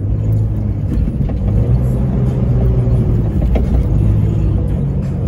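Jeep Cherokee XJ engine and drivetrain running under way, heard from inside the cab as a steady low drone while the Jeep drives over a sandy trail.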